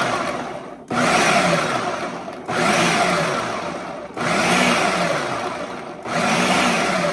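Food processor with a dough blade pulsing shredded cheddar, flour and seasonings, running in bursts of about a second and a half with short breaks between. In each burst the motor pitch rises and then falls.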